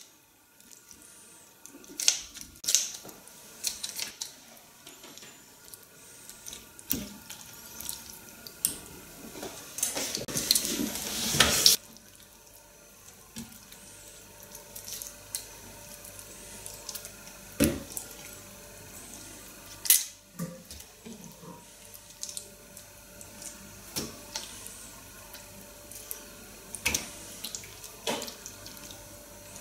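Wet handling sounds as raw squid are cleaned by hand: scattered squelches and small clicks against a plate. Near the middle, a couple of seconds of running water build up and then stop abruptly.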